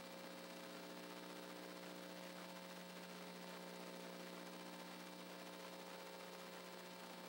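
Faint, steady electrical mains hum with a light hiss, unchanging throughout.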